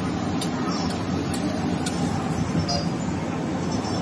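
Steady low rumble of a busy eatery kitchen, with a few sharp clinks and scrapes of a metal spatula on a flat griddle.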